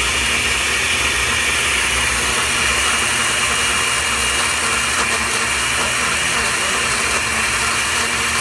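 Countertop blender running steadily at full speed on its frozen-drink setting, its motor giving a steady high whine as the blade churns ice cubes, hot dogs and beer.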